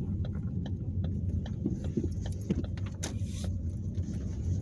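Inside a moving car: steady low road and engine rumble, with a turn signal ticking evenly about two and a half times a second. A brief hiss about three seconds in.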